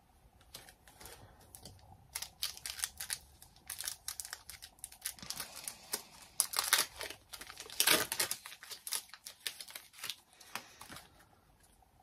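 Foil wrapper of a Pokémon card booster pack crinkling and tearing as it is opened by hand: a quick run of sharp crackles that starts about two seconds in and fades near the end.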